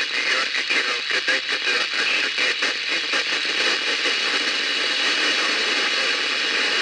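Hiss of a weak narrow-band FM signal from the 10-metre amateur band on a shortwave receiver, the distant repeater barely above the noise. The first three seconds or so are choppy and crackling, then the hiss settles and holds steady.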